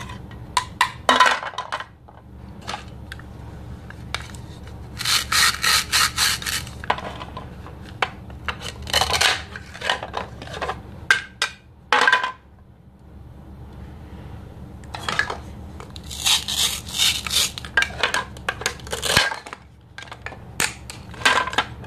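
Plastic toy knife sawing through velcro-joined plastic toy food, the hook-and-loop fastening tearing apart in bursts of dense crackly ripping, loudest about five seconds in and again around sixteen seconds. Light clicks and knocks of hard plastic pieces on a plastic cutting board come in between.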